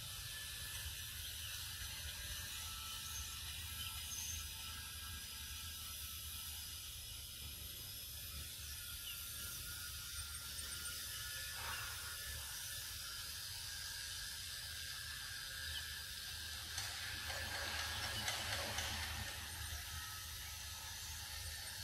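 Steady forest ambience: an even hiss with faint high steady tones and a low rumble underneath, with a louder noisy stretch about 17 seconds in that lasts roughly two seconds.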